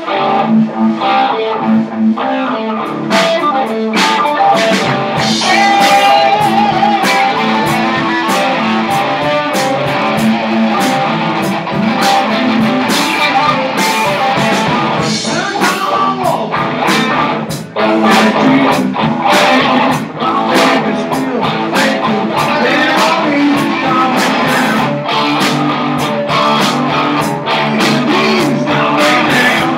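Live blues band playing an instrumental passage led by guitar, with steady drum hits underneath.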